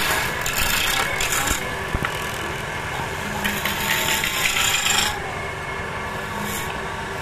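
A turning chisel cutting into a spinning mahogany blank on a wood lathe: a harsh scraping shave, in two spells, one at the start and one from about three to five seconds in, then quieter.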